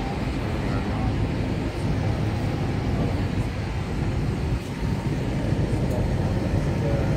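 Jet airliner cabin noise on descent: the steady low roar of the engines and airflow heard from inside the passenger cabin.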